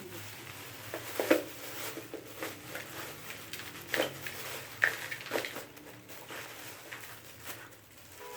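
Lumps of barbecue coal being put by hand into a kitchen bowl, giving irregular clunks and clatters. The loudest come about a second in and again around four to five seconds in.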